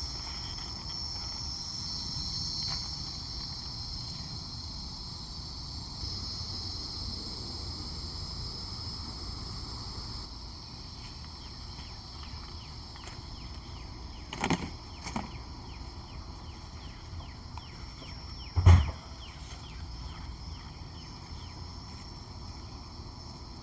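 Outdoor garden ambience: a steady high-pitched insect drone that stops about ten seconds in, then faint short chirps. Two light knocks come about two-thirds of the way through, and a louder thump follows near the end.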